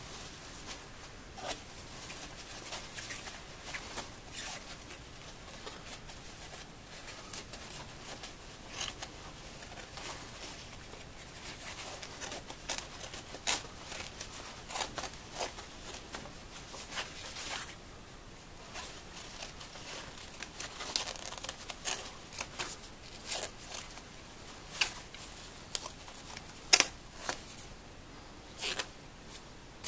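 Slick nylon of a quilted coat rustling and crinkling as it is handled, with irregular sharp snips and crackles of scissors cutting through the fabric, busier in the second half.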